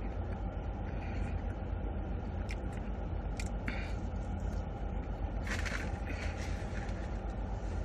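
Eating sounds: a few short clicks and crackles, with a longer crackly stretch a little past halfway, over a steady low rumble.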